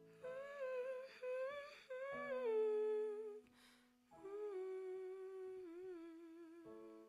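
A woman humming a wordless melody in two soft phrases, the second ending on a wavering held note, over sustained digital keyboard chords that change about two seconds in and again near the end.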